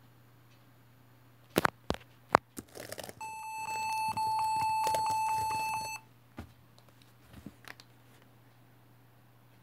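Acer Aspire 9300 laptop beeping one steady, high electronic tone for about three seconds while its keys are pressed, on a laptop that will not start. Before the beep come a few sharp clicks, and a few softer clicks follow it.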